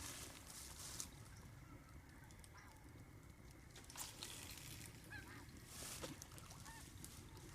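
Faint goose honks, a few spaced calls over quiet outdoor background, with a few soft knocks.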